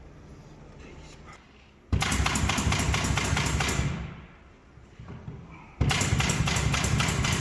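A handheld power tool run in two bursts of a few seconds each, with a fast, even beat through each run; the second starts just under two seconds after the first stops.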